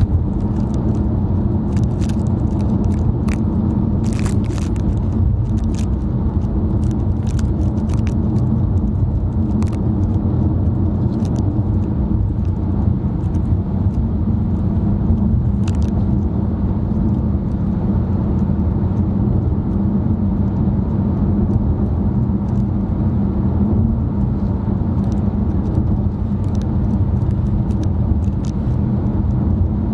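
Car driving steadily, heard from inside the cabin: a constant low drone of engine and road noise, with scattered small clicks and ticks.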